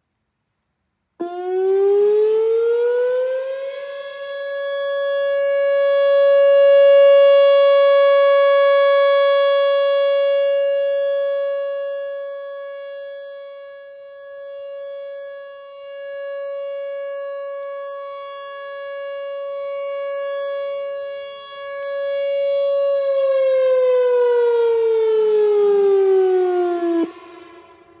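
Whelen WPS 4004 electronic outdoor warning siren sounding a steady alert on a single 560 Hz tone: it starts suddenly about a second in, winds up over a few seconds, holds steady, then winds down and cuts off about a second before the end. The level swells and fades slowly as the rotating horn array turns toward and away.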